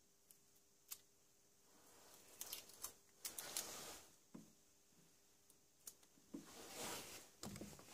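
Masking tape being handled and pulled off its roll: quiet rasps and rustles about three seconds in and again near seven seconds, with scattered small clicks.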